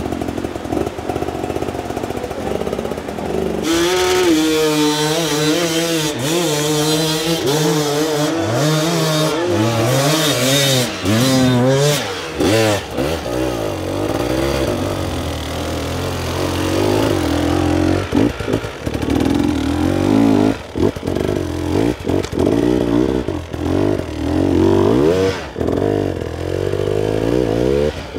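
Enduro dirt bike engines revving over and over, the pitch swinging up and down with the throttle as the bikes claw up obstacles. About four seconds in, a louder, brighter engine takes over.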